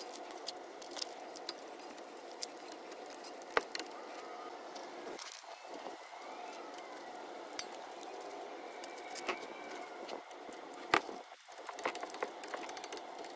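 Hand tools tightening the front brake caliper bolts: scattered light metal clicks and clinks of the wrench and socket, with two sharp single clicks, about 3.5 and 11 seconds in, as the torque wrench reaches its 20 ft-lb setting on each bolt. Steady faint background noise underneath.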